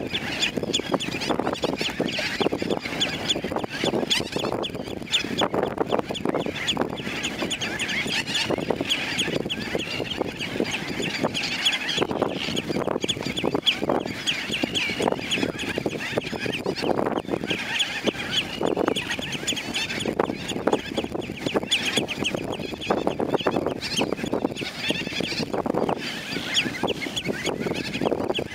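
A breeding colony of gull-billed terns and Mediterranean gulls calling, many birds at once: a dense, unbroken chorus of overlapping cries.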